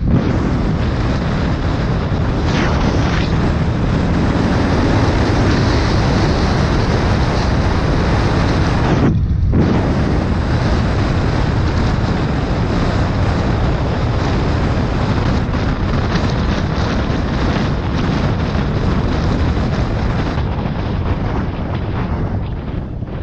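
Motorcycle riding at road speed: steady heavy wind noise on the rider's microphone over engine and road rumble. The sound drops out briefly about nine seconds in.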